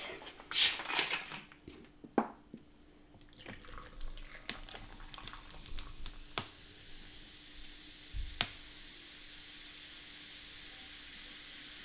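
Fizzy diet cola poured from a plastic bottle into a glass: splashing and crackling with a few sharp clicks, then a steady fizzing hiss of carbonation from about eight seconds in.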